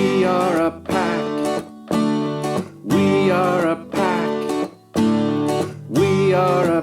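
Acoustic guitar strummed in short chords about once a second, with brief gaps between them. A voice sings a phrase over it roughly every three seconds.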